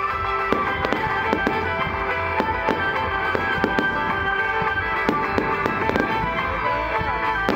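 Aerial firework shells bursting one after another in quick, irregular succession, two or three sharp bangs a second, with music playing underneath.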